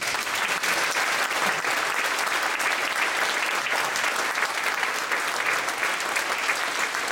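Audience applauding: dense clapping that breaks out suddenly and holds steady.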